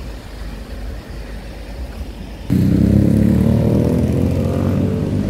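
Low street rumble, then from about two and a half seconds in a vehicle engine running loud, its pitch rising slightly as it accelerates.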